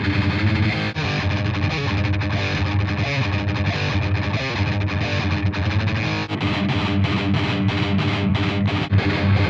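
Heavily distorted electric guitar played alone through the Brainworx Mega Dual amp-sim plugin, an emulation of a Mesa/Boogie Dual Rectifier amp. Sustained riffing gives way, about six seconds in, to tight staccato chugs at about four a second.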